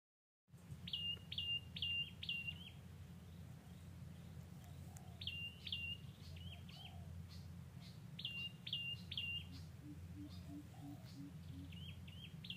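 A small songbird singing short phrases of three or four quick, sharp chirps, repeated every few seconds. Around ten seconds in, a softer series of low piping notes joins, over a steady low background hum.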